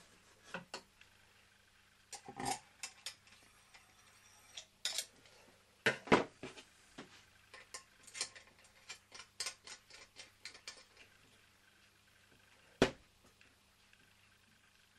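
Small metal clicks, clinks and knocks from handling the fittings of a small model steam traction engine, irregular through the middle, with the loudest clinks about six seconds in and one sharp knock near the end.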